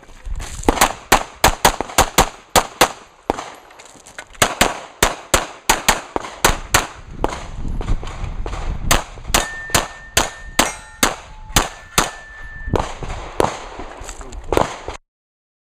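A rapid string of pistol shots, about two to three a second in quick groups with short pauses, while steel targets clang and ring when hit. It cuts off suddenly near the end.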